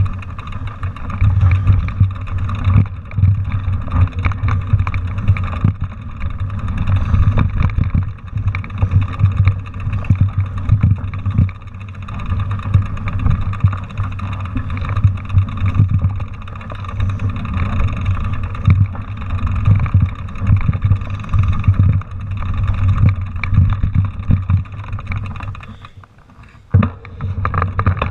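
Mountain bike riding over a rough, rocky dirt trail, heard from a handlebar-mounted camera: constant jolting, rattling and knocking of the bike and camera mount, with wind rumbling on the microphone. It goes briefly quieter near the end.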